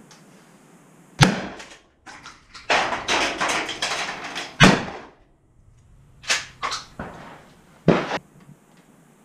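Two pump-action shotgun shots about three and a half seconds apart, the first about a second in, followed by a few lighter metallic clacks.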